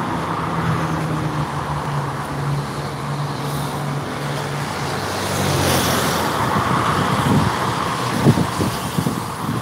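Steady highway traffic noise: a low engine drone over the hiss of tyres, with one vehicle passing about six seconds in and a few dull thumps near the end.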